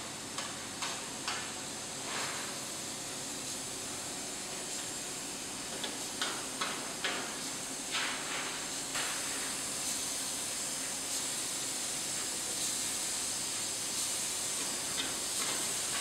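Compressed-air paint spray gun hissing steadily as it sprays paint onto ceiling-fan motor housings, with a few short louder spurts.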